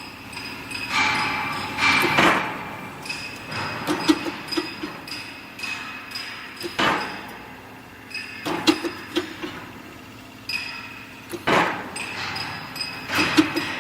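Heavy steel-beam processing machinery working, with repeated metallic knocks and clanks that ring on. Louder grinding bursts come every two to three seconds.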